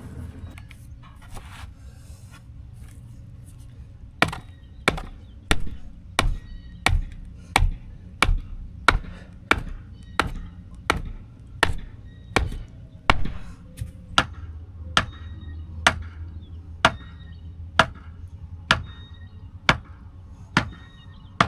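A hand tool striking a wooden board over and over: about twenty sharp, evenly paced blows beginning about four seconds in, a little faster than one a second, each with a short metallic ring.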